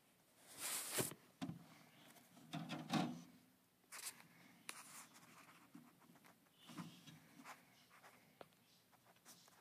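Scratchy rustling and scraping in coconut-fibre bedding as a king snake strikes a mouse and wraps it in its coils, the biggest rustles in the first three seconds, then scattered smaller scratches as the coils shift.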